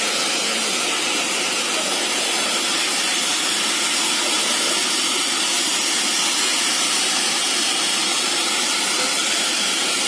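Loud, steady rushing hiss of a high-pressure water jet thrown from the nozzle of a Forede PSKDY remote-controlled tracked fire water monitor, with its spray filling the air.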